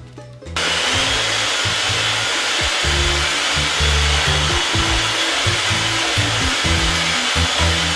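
Electric hand mixer switched on about half a second in and running steadily with a high whine, its beaters whisking thick homemade mayonnaise in a bowl as salt, lemon juice and mustard are mixed in.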